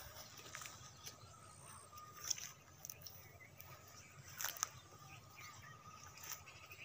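Faint outdoor ambience with scattered light clicks and rustles, the sharpest about two and a half and four and a half seconds in.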